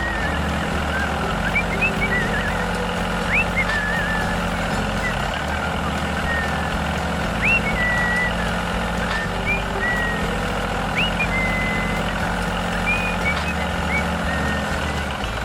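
A steady, low, engine-like vehicle hum, with short high chirps scattered over it.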